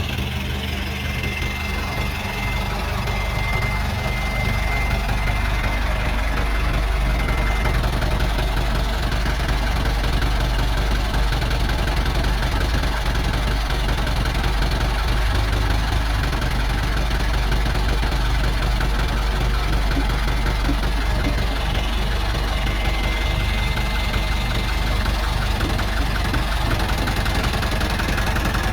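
Excavator's diesel engine running steadily with a fast, even knocking pulse. A thin, high-pitched whine sounds over it for the first several seconds and again in the last few.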